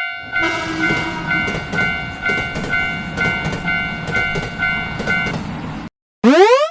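Railroad crossing alarm ringing its repeating kan-kan tone while a train passes with a loud rumble and rail clacks about twice a second. The alarm and the train sound stop near the end, and a short rising whistle-like sweep follows.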